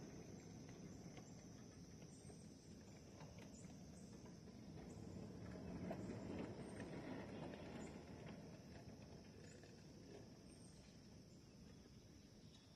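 A 1/8-scale ride-on backyard train rolling past on its track. Its steel wheels rumble and click over the rails, growing louder to a peak about halfway through as the cars pass closest, then fading.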